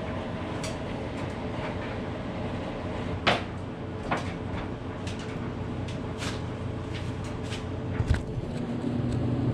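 Scattered sharp clicks and knocks over a steady low hum, the loudest click about three seconds in and a dull thump near the end, after which the hum grows a little louder with a steady tone.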